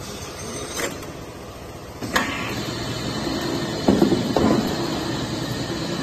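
Automatic paint-bucket palletizing machinery running: a sharp clack about two seconds in, then a steady mechanical rumble with a couple of metal clatters near the middle.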